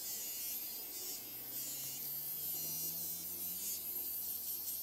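Finishing Touch Flawless battery-powered facial hair remover buzzing steadily as it is run over the skin of the cheek and around the nose. Its low hum rises a little in pitch partway through.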